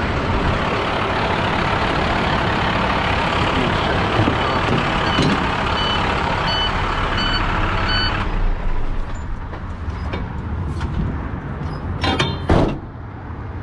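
Compressed air hissing steadily out of a heavy truck's air brake system, which has a bad air leak, then cutting off suddenly about eight seconds in. A few short electronic beeps sound during the hiss, and a brief clatter follows near the end.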